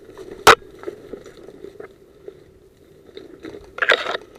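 Dry twigs and undergrowth crunching and rustling as someone pushes through brush. One sharp, loud crack comes about half a second in, and a louder rustle near the end.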